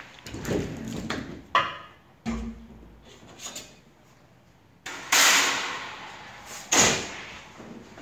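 Squeegee drawn across an inked screen on a screen-printing table, followed by knocks and thuds of the screen frame and metal sign plates being handled. Two loud rushing bursts, about five and about seven seconds in, are the loudest sounds.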